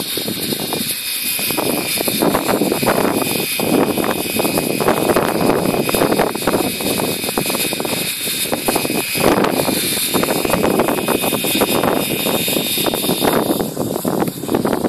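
A radio-controlled model helicopter flying overhead: a steady high whine from its motor and rotor over a rushing noise. The whine fades near the end as it flies off.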